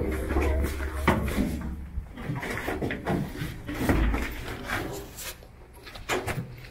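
Irregular knocks, thumps and footsteps on an open-air tram's metal floor and metal-framed benches as riders board and sit down, with some low rumble and faint voices.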